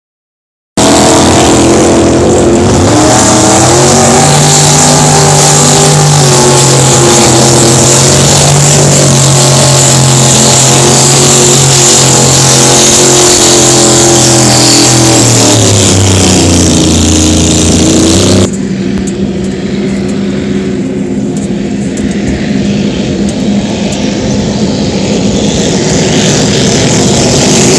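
Racing hydroplane engines at speed: a loud, steady, many-toned drone that drops in pitch around 15 to 18 seconds in. About 18 seconds in it changes suddenly to a quieter, rougher rush, which builds again near the end.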